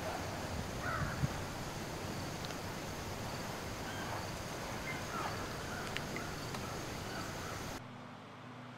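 Several short bird calls over a steady outdoor hiss. Near the end the sound cuts abruptly to a quieter, steady low hum.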